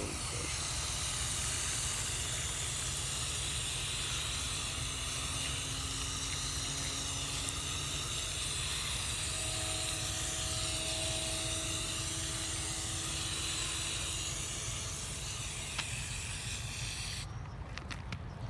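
Water spraying from a garden hose nozzle on a low setting onto potting soil: a steady hiss that cuts off suddenly near the end as the nozzle is shut.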